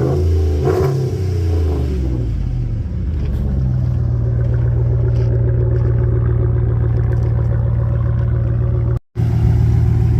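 Pickup truck's 5.7 Hemi V8 engine revving, its pitch rising and falling for the first couple of seconds, then settling into a steady idle. The sound drops out for a moment near the end.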